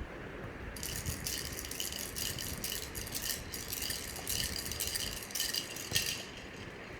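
Toy rattle shaken in irregular bursts of quick, high rattling, starting about a second in and stopping about a second before the end.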